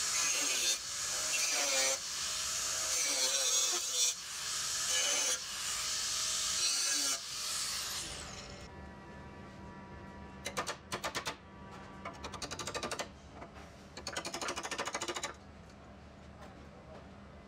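Angle grinder grinding steel, the hiss-like grinding noise dipping briefly every second or so as the disc is lifted off and put back on. About seven seconds in it is switched off and spins down with a falling whine. It is followed by several short bursts of fast metallic rattling clicks.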